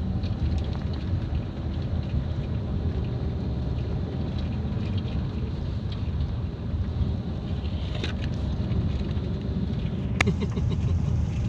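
Car driving along a paved road, heard from inside the cabin: a steady low rumble of engine and tyres, with a sharp click about ten seconds in.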